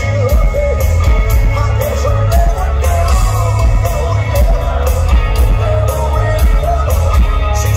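Live rock band playing loudly, with a male lead singer singing over heavy drums, bass and electric guitars, heard from within the audience.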